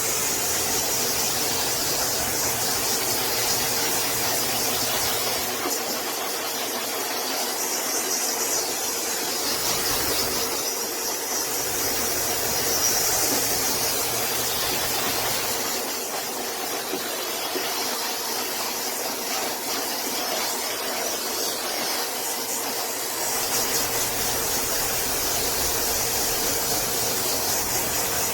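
High-velocity pet hair dryer running steadily, a hiss of rushing air with a steady motor whine underneath.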